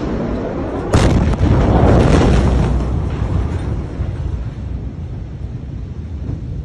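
Blast of a massive ammonium-nitrate explosion arriving: a sudden loud boom about a second in, then a low rumble that fades away over the next few seconds.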